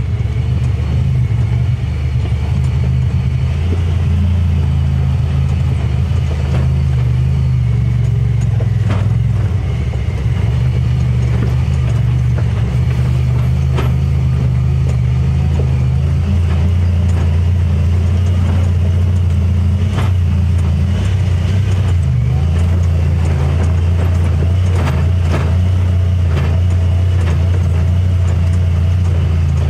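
Honda Pioneer 1000-5 side-by-side's parallel-twin engine running steadily while driving over a rocky trail, heard from inside the cab, with scattered knocks and rattles as it goes over rocks.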